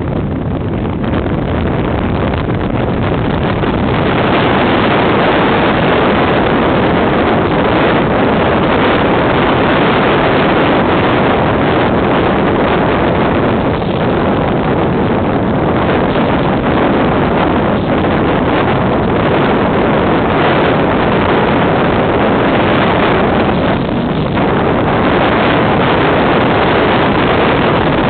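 Steady rush of wind and road noise from a moving vehicle, with wind buffeting the microphone at the open window. It gets louder about four seconds in.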